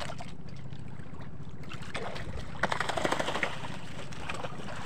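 Water splashing against the side of a small outrigger boat for about a second and a half, starting about two seconds in, as a hooked skipjack tuna thrashes at the surface while it is hauled in on a handline. A steady low rumble runs underneath.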